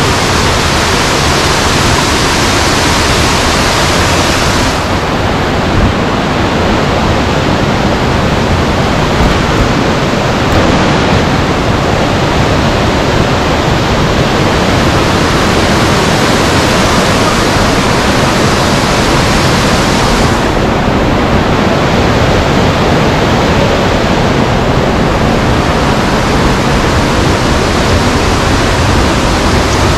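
Loud, steady rush of cascading mountain water from a waterfall stream.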